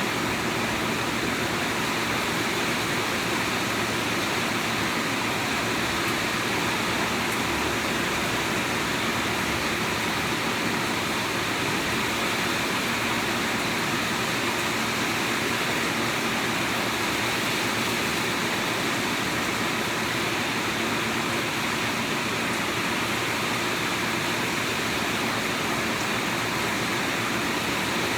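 Rain falling steadily, an even, unbroken hiss with no breaks.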